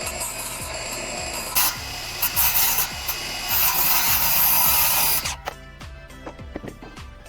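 A power tool working wood, running steadily with a few louder passes, then stopping about five seconds in. Background music with a steady beat runs underneath.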